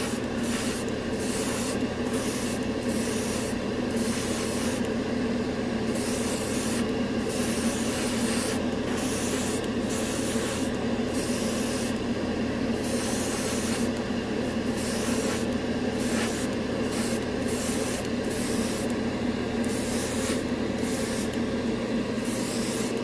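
Airbrush spraying thinned lacquer paint in a run of bursts of air hiss, stopping briefly many times as the trigger is let off, over a steady motor hum.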